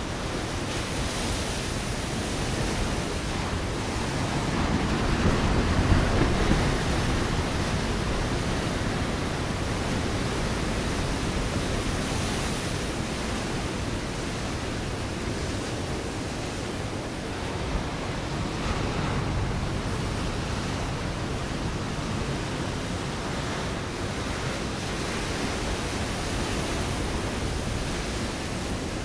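Ocean waves breaking on a rocky shore: a continuous wash of surf, with a louder wave surging about six seconds in and a smaller one near the middle.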